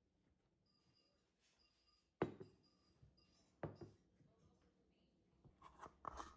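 A quiet kitchen with two sharp knocks, about two and three and a half seconds in, as a jar and a glass measuring cup are set down on a stone countertop. Near the end comes a short grating rattle as the lid is twisted off a jar of yeast.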